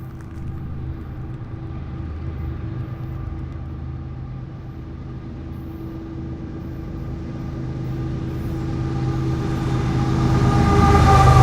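Freight train approaching: a steady low rumble with a held hum that grows louder toward the end.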